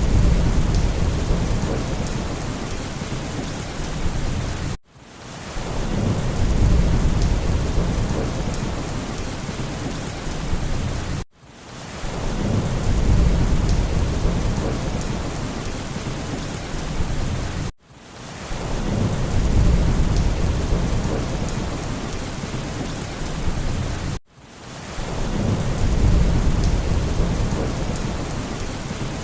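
Steady heavy rain hiss with low rolling thunder that swells up every few seconds. It is a short loop: it repeats about every six and a half seconds, each time dropping out for an instant.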